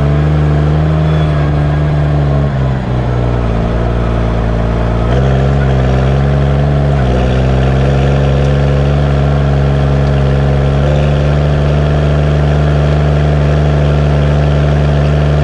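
Case MX135 tractor's six-cylinder diesel engine running under way, heard close to its exhaust stack. The engine note dips slightly in the first few seconds, shifts about five and seven seconds in, then holds steady.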